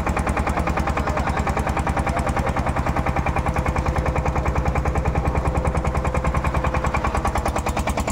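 A fishing boat's engine running steadily, a rapid even chugging of about ten beats a second.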